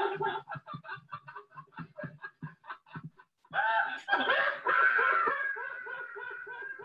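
A woman laughing uncontrollably: quick, choppy snickers at first, then about three and a half seconds in a loud, long, high-pitched laugh that wavers and slowly fades.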